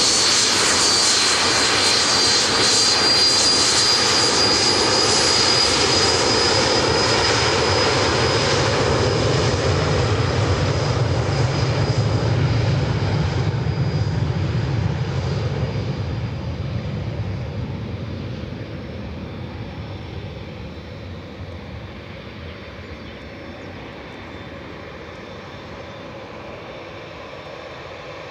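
Twin Williams FJ44 turbofans of a Cessna Citation CJ1 at takeoff power, a loud jet engine noise with a high whine that rises slightly over the first few seconds. The noise fades from about 16 seconds in as the jet accelerates away down the runway on its takeoff roll.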